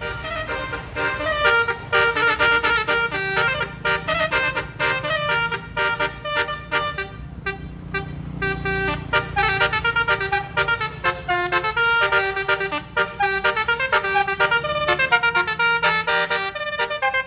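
Bus basuri multi-tone musical horn playing a telolet tune in quick stepped notes, one note after another. A low steady hum runs beneath it and fades near the end.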